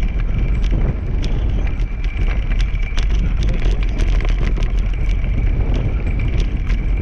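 Two-dog scooter rolling fast over a grass track: a continuous low rumble of wheels and wind on the microphone, with a steady high whine and frequent sharp rattles and clicks from the rig.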